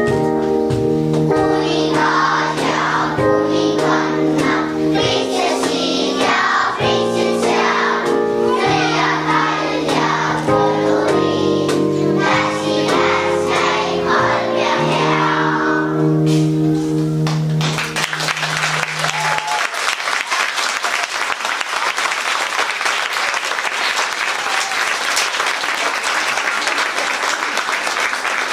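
A group of young children singing a song together over an instrumental accompaniment. The song ends about two-thirds of the way through, and an audience applauds.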